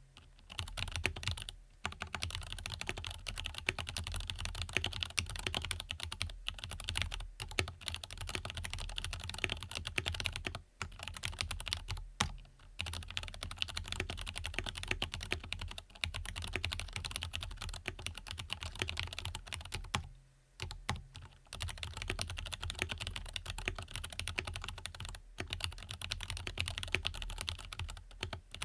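Fast, continuous typing on an Angry Miao Cyberboard mechanical keyboard with lubed Zealios tactile switches: a dense run of key clacks, broken by a few short pauses, the longest about twenty seconds in.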